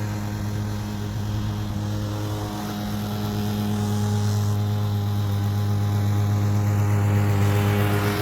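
Masport Rotarola petrol lawn mower engine running steadily under load while mowing grass, a constant drone that gets a little louder over the last few seconds.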